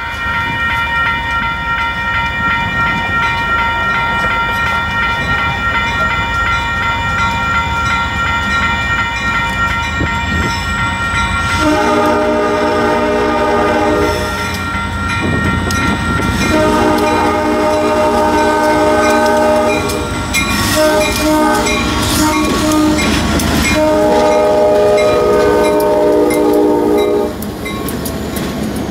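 Cleveland Commercial Railroad freight locomotive passing with a steady whine and rumble. From about twelve seconds in it sounds its multi-note air horn in several long blasts.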